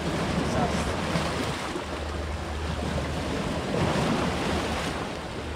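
Sea waves surging and washing against shoreline rocks, a steady rush of surf that swells twice, near the start and about four seconds in.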